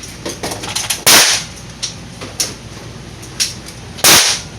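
Two handgun shots about three seconds apart during a pistol course of fire, each sharp and loud with a short ring-out, with small clicks of gun handling between them.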